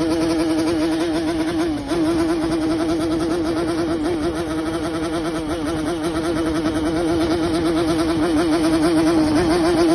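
Yamaha RX-King's single-cylinder two-stroke engine running at steady speed while riding, a loud buzzing exhaust note that wavers slightly in pitch, with a brief dip about two seconds in and growing louder near the end.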